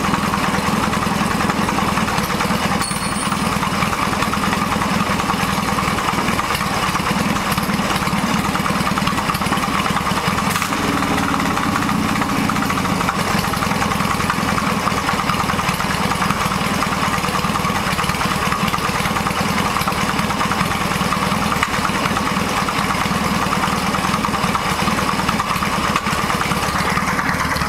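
Yamaha XS650 parallel-twin motorcycle engine idling steadily on choke and popping a little; its ignition timing is nearly, but not quite, set.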